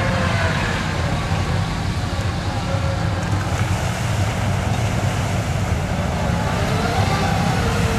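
Engine of a lifted Chevrolet mud truck on oversized tyres running under load as it drives into a muddy water pit and wades through it, water churning around the tyres.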